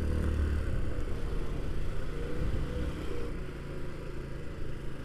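1985 Honda Elite 150 Deluxe (CH150) scooter's single-cylinder four-stroke engine running as the scooter rolls along at low speed. It eases off and gets quieter over the last couple of seconds.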